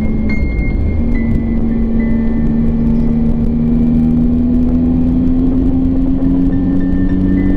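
Triumph Tiger 800 XRT's three-cylinder engine running under way, its note rising slowly and steadily as the motorcycle gathers speed, over a low road and wind rumble.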